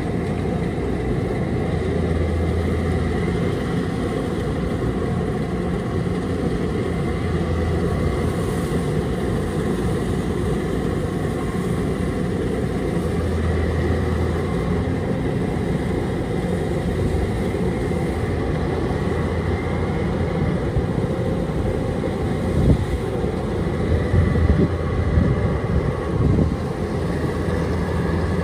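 Kubota DC-105X rice combine harvester running steadily under load as it cuts rice, a constant engine and machinery drone. Near the end come a few louder irregular knocks and rattles.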